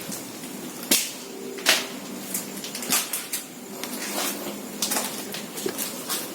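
Footsteps on a hard floor, a sharp scuff or crunch roughly once a second.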